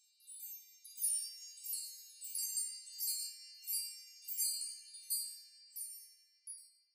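A run of high, bell-like chime tones struck about twice a second, each ringing briefly, with nothing low under them and growing fainter toward the end. It is a logo jingle for an end card.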